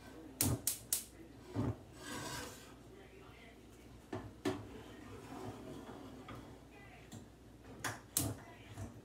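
Kitchen utensils and containers being handled on a counter: a quick run of three sharp clacks, then scattered knocks of items being set down, with soft rubbing and shuffling between them.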